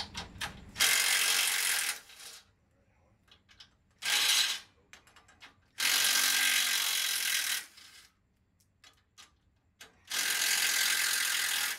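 Cordless power tool running in four short bursts of about half a second to a second and a half each, with small clicks between, working the nuts on a pickup's front bumper mounting bracket.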